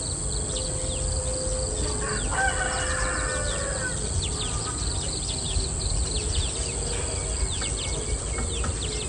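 A rooster crows once, about two seconds in, over many short chirps from small birds.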